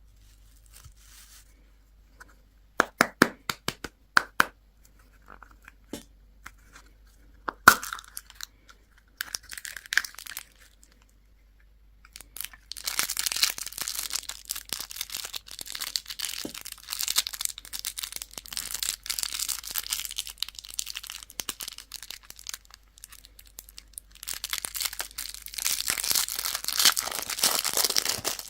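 Crinkly candy wrapper being handled and torn open: a few sharp clicks and crackles in the first eight seconds, then continuous crinkling and tearing from about halfway through.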